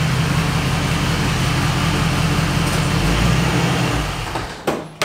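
A 1974 Jeep Cherokee's engine running as the truck rolls slowly into a garage and stops, then shut off about four seconds in. A sharp clunk near the end, as the driver's door is opened.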